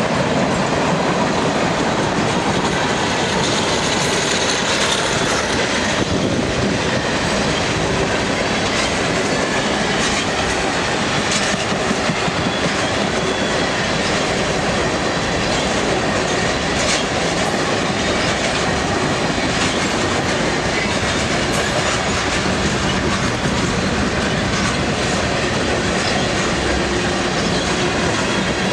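Freight train of tank cars rolling past at close range: a steady noise of steel wheels on rail, with the clickety-clack of wheels passing over rail joints.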